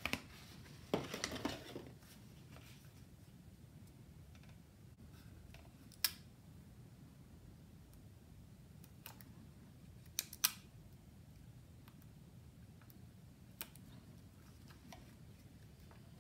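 Paper sticker sheet rustling as a sticker is peeled off, about a second in, then a few sharp clicks of the hard plastic Micronauts Battle Cruiser toy being handled while stickers are pressed on, two of them close together about ten seconds in.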